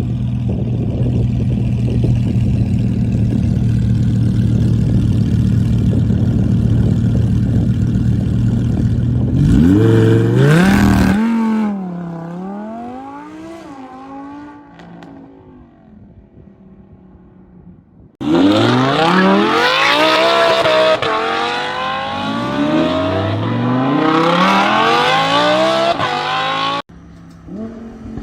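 Audi R8's 5.2-litre V10 engine heard through its exhaust. It runs loud and steady for about nine seconds, then revs sharply up and down and fades away. After a cut it climbs in a series of rising revs, each one dropping back before climbing again, as in hard acceleration through the gears.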